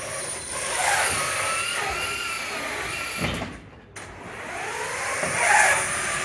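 Competition robot's electric drive motors whining, the pitch rising and falling as the robot speeds up and slows while driving. A thump a little past the middle, a brief lull, then the whine climbs again.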